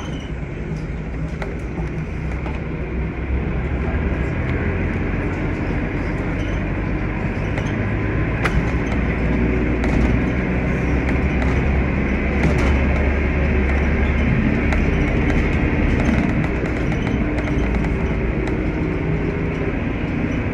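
Steady low rumble of a vehicle on the move, with road noise and a few faint clicks. It grows a little louder about three seconds in.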